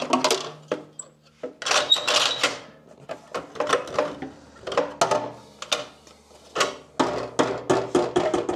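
A jointer-planer's blade guard being moved aside to uncover the cutterhead: a run of knocks and clicks, with scraping near the start and about two seconds in.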